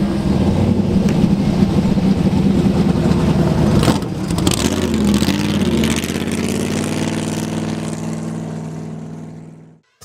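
Off-road race vehicle engine running hard under steady load, mixed with rushing wind and dirt noise. There is a brief disturbance about four seconds in, and the sound fades away near the end.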